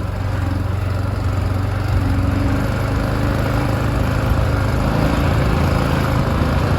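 A vehicle engine running steadily close by, a little louder from about two seconds in.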